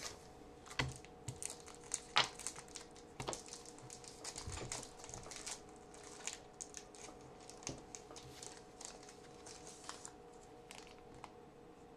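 Trading card pack wrapper crinkling and cards being handled: a quick run of small clicks and crinkles that thins out near the end.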